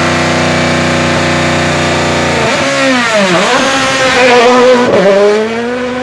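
Rally car's turbocharged four-cylinder engine running at a fast, steady idle. About halfway through it is blipped: the revs drop and climb again a couple of times. Near the end it settles to a quieter, steady run.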